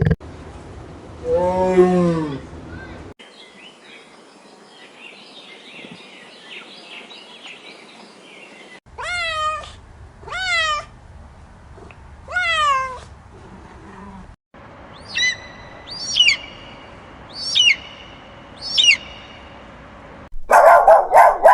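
Cat meowing: three drawn-out meows, each falling in pitch, then four shorter, higher mews. A lower single call comes near the start, faint high chirping runs underneath in the first half, and a loud burst of sound begins just before the end.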